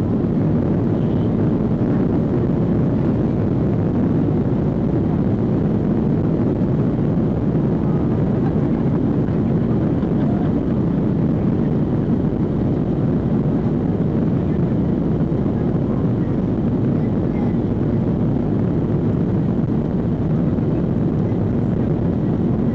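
Steady, even cabin noise of a Boeing 737-800 in flight operations, its CFM56-7B jet engines and the airflow heard from a window seat inside the cabin, with no change in level.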